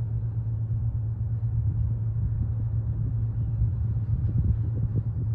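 Steady low mechanical drone with a rough, uneven rumble over it.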